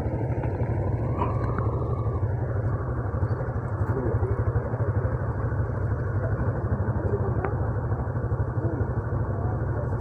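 Honda Revo 110's small single-cylinder four-stroke engine idling steadily while the bike stands still.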